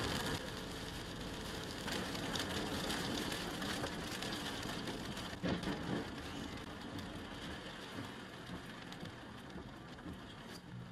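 Steady hiss of rain and tyres on a wet road, heard from inside a moving car, with a single thump about halfway through. The noise grows gradually quieter toward the end.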